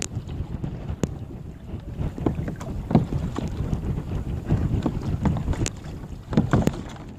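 Wind buffeting the microphone in a steady low rumble, with irregular knocks and splashes of water against the kayaks rocking in the waves.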